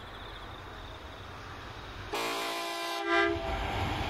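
Diesel freight locomotive approaching with a low, steadily growing rumble. About two seconds in, the lead locomotive sounds its multi-note horn for just over a second, swelling to its loudest just before it cuts off, and then the rumble of the train grows louder as it nears.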